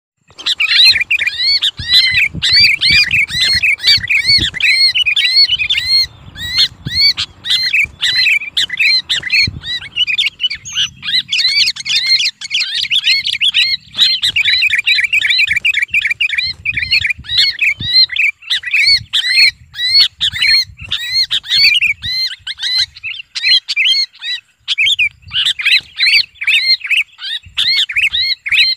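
Sooty-headed bulbul held in the hand, giving a continuous run of shrill screaming distress calls, several a second with only brief pauses. This distress scream is the call trappers play to lure other bulbuls in.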